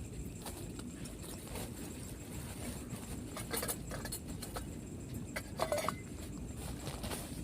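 Short scattered clinks and knocks, like a cooking utensil against a pan, with the loudest little cluster about five and a half seconds in, over a steady low rumble.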